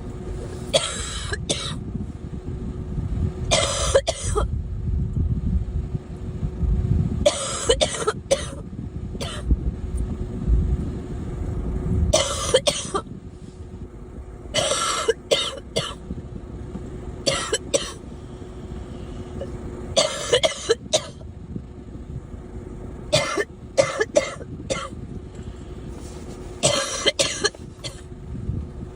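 A girl coughing repeatedly: a single cough or a quick run of two or three every two to four seconds, about ten bouts in all.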